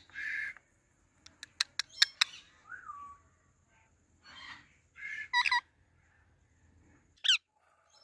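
Pet parakeets chattering. A short squawk, then a quick run of sharp clicks and chirps, a short falling whistle, more chattering calls, and one brief sharp shriek near the end.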